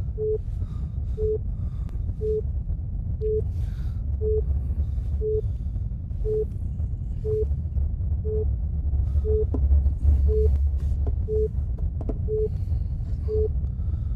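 An uninterruptible power supply (UPS) alarm giving a short, low-pitched beep about once a second, the warning of a UPS running on an empty battery during a power cut. A strong low rumble drones underneath.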